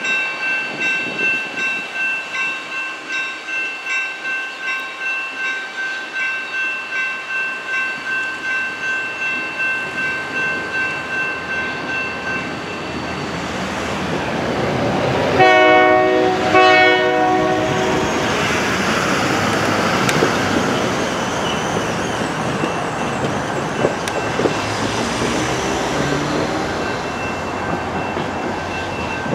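General Signals Type 2 electronic crossing bell ringing about twice a second, fading after about twelve seconds. About halfway through come two short blasts of a locomotive horn, then the rumble of a pair of Union Pacific EMD diesel locomotives, a GP60 and a GP40-2 running light with no cars, passing over the crossing.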